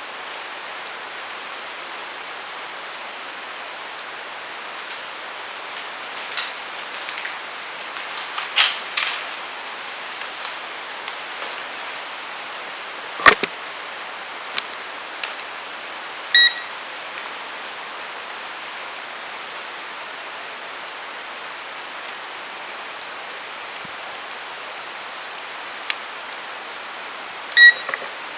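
Steady hiss with scattered faint clicks and one sharp click near the middle, then two short electronic beeps, one soon after the click and one near the end.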